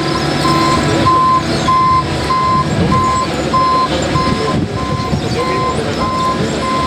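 Backup alarm on a paving machine or truck beeping steadily, about one short beep every 0.6 s, over the low running of its diesel engine.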